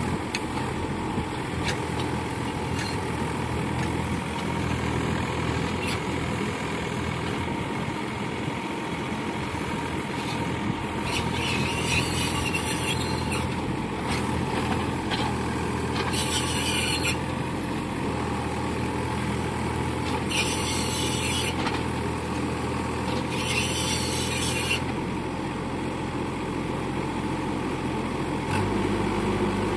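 Mini excavator's Yanmar diesel engine running steadily, with four short, high hissing squeals of about a second each in the second half.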